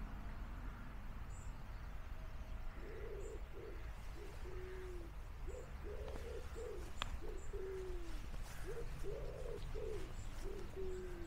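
Wood pigeon cooing: about three repeated phrases of about five low notes, each phrase ending on a longer falling note. Faint small-bird chirps behind it.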